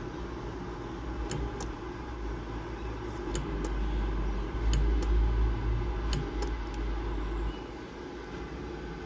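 Homemade microwave-oven-transformer spot welder firing about four times as its copper probes are pressed onto a metal tab on lithium-ion cells; each weld gives a pair of sharp clicks about a quarter second apart. Under it runs a low hum that stops near the end.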